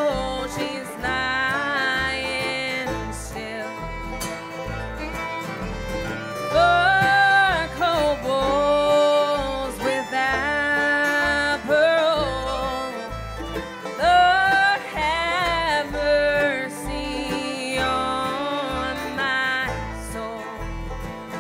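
Acoustic bluegrass band playing an instrumental break, the fiddle taking the lead with sliding, bending notes over strummed acoustic guitars, banjo, mandolin and a plucked upright bass line.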